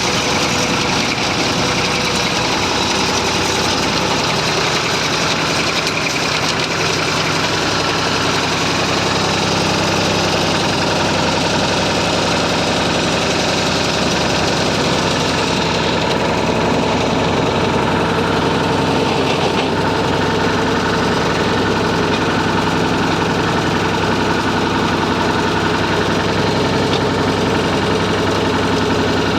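Massey Ferguson 35 tractor engine running steadily, pulling a plough.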